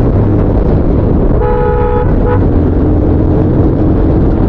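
Custom Bajaj Pulsar 220 motorcycle's single-cylinder engine running steadily at cruising speed. A vehicle horn sounds once for over half a second about a second and a half in, then gives a short second beep just after.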